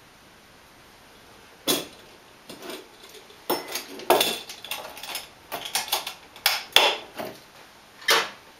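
Kitchenware being handled: an uneven series of sharp metal clinks and knocks, starting a little under two seconds in, as a metal measuring cup and stainless counter canisters are set down and moved.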